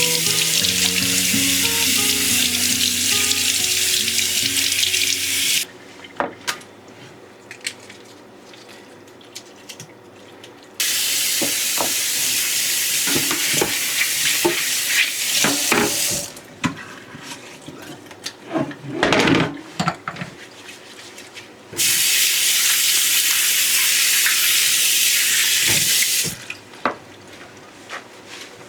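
Kitchen sink tap running in three spells of about five seconds each, turned off suddenly between them, with knocks and clinks of things being handled at the sink in the pauses.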